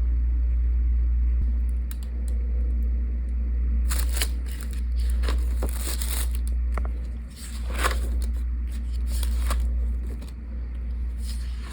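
Paper and packaging being handled and opened, rustling and crinkling on and off from about four seconds in, over a low steady rumble.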